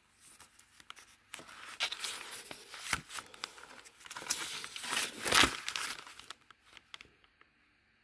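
A folded paper instruction sheet being handled and unfolded, rustling and crinkling in irregular bursts with sharp crackles, loudest a little past five seconds in.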